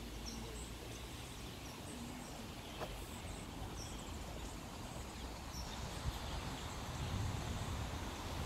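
Outdoor ambience by a lake: a steady low hiss with a small bird chirping briefly every second or two. A low rumble builds near the end.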